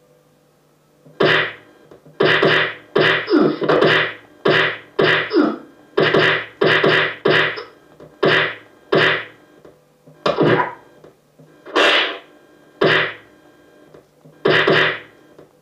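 Dubbed-in fight-scene punch sound effects: a rapid series of about eighteen sharp hits, each with a short ringing tail, starting about a second in, coming two or three a second, then spacing out toward the end.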